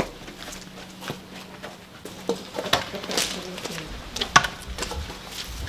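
Footsteps and scattered wooden knocks as old wooden boards and planks are carried and handled, with a few sharp knocks in the second half.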